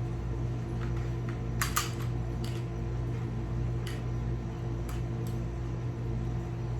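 FN FNX pistol being reassembled: a series of sharp metal clicks as its parts are fitted back together, with a close pair of clicks nearly two seconds in, over a steady fan-like hum.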